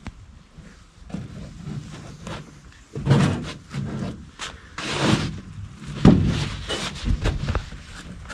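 Thumps and knocks of a canoe hull as someone steps in and shifts their weight aboard: a run of irregular knocks and thuds beginning about three seconds in.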